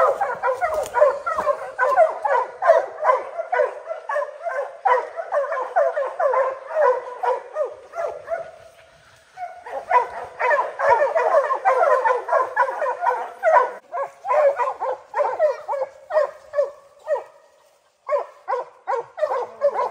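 A pack of bear hounds barking fast and without let-up at a bear they have treed, several dogs overlapping. There is a brief lull about halfway through before they start again.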